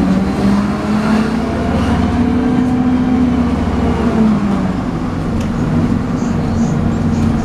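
MAN 18.240LF bus's six-cylinder diesel running under way, heard on board, with the vacuum-cleaner-like 'hoover' whine these buses are known for. The engine note climbs about two seconds in and drops back about four seconds in as the bus pulls and eases off.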